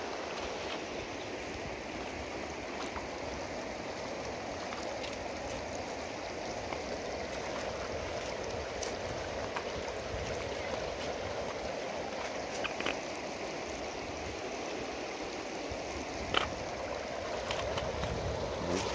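River water rippling and trickling over a shallow pebble bed at the bank: a steady rushing, with a few faint clicks.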